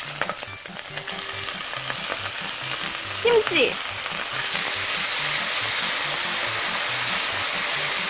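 Green onion and chopped ingredients sizzling in a nonstick frying pan as they are stir-fried with a silicone spatula. Kimchi goes into the pan partway through, and the sizzle grows louder and fuller.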